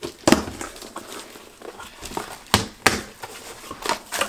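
A cardboard box being handled and opened, with a few sharp knocks and rustling as plastic-wrapped clear organizers are pulled out of it.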